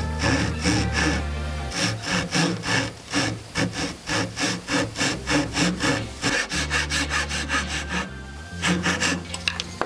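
Fine-toothed hand saw cutting into a wooden tenon for a 45-degree joint, in quick even strokes about three a second, with a short pause near the end before a few more strokes.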